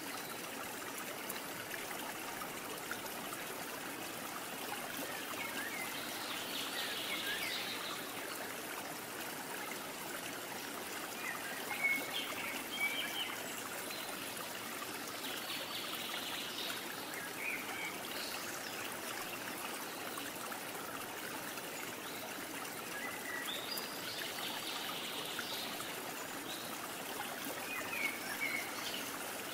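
Steady rush of flowing water, with a few short high chirps now and then.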